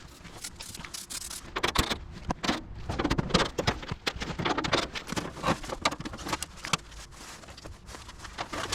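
Irregular clicks, knocks and light metal rattles of hand tools and parts being handled while an air-conditioner condenser fan motor is swapped.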